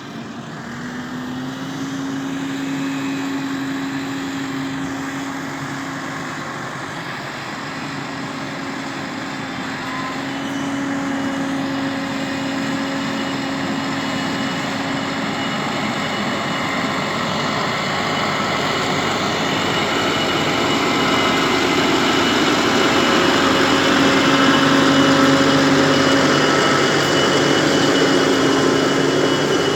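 New Holland T6 tractor engine running steadily amid machinery noise, getting louder toward the end.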